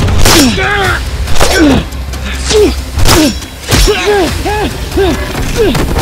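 Two people grunting and yelling in short bursts, several a second, each rising and falling in pitch, as they trade swings with foam toy axes and pickaxes. Quick swishes and knocks from the swings and hits come in between.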